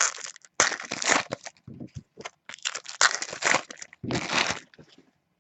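Foil trading-card pack wrappers being torn open and crinkled, in several irregular crackling bursts.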